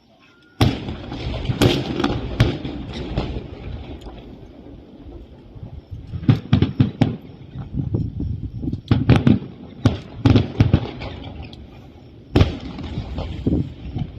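Aerial fireworks shells bursting in a display. A volley starts suddenly about half a second in and goes on as rapid clusters of sharp bangs, with rumbling between them.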